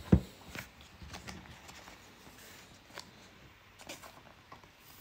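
Trading cards handled on a tabletop: a single knock just after the start as a stack of cards is set down, then faint rustles and light ticks as a card is slid into a soft plastic sleeve.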